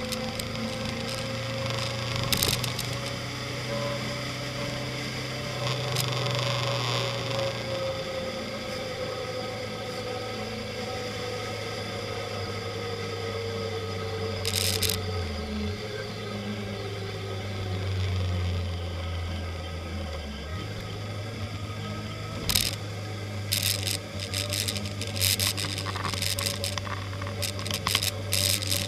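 Motorcycle engine running at low road speed, heard from a camera mounted on the bike, with a steady low drone and a slow rise and fall in pitch, and the note shifting around the middle. Wind noise and scattered knocks from bumps come through, more of them near the end.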